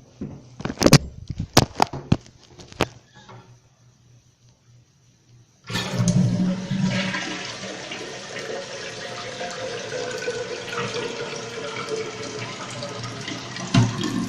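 A few sharp clicks and knocks, then about six seconds in a 1970s Norris toilet flushes: a sudden loud rush of water that carries on steadily.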